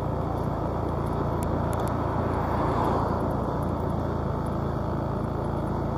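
Steady engine hum and road noise from a vehicle driving along a paved street, swelling slightly about halfway through.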